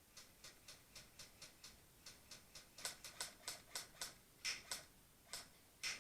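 A rapid, even series of sharp clicks, about four a second, growing louder about halfway through with a few stronger clicks, then stopping near the end.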